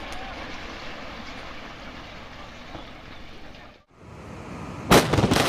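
Steady outdoor background noise, then, after a brief drop-out, a sudden loud blast about five seconds in, followed by a continuing crashing rumble and crackle of debris as a building comes down in a demolition.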